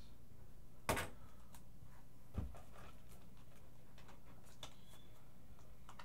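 Objects handled on a desk: a sharp knock about a second in and another a second and a half later, then a few faint clicks, over a low steady room hum.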